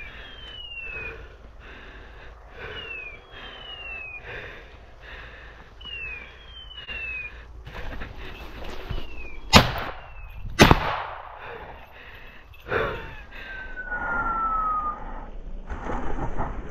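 Two shotgun shots about a second apart, very loud and sharp, with a softer bang a couple of seconds later. Before the shots, pairs of short falling whistle tones repeat every second or two.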